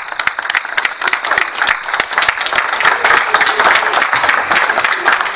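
An audience of schoolchildren and adults applauding, with many hands clapping densely and steadily.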